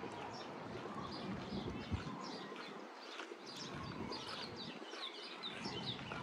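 Birds chirping and singing, many short quick calls one after another, over a steady outdoor background noise.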